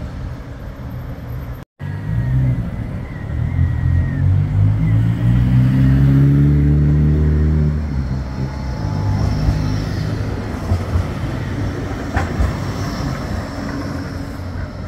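Bombardier Flexity 2 tram's traction motors whining, the whine climbing in pitch as the tram picks up speed and stopping about halfway through. After that the tram rolls along the track, with a single sharp click a few seconds later.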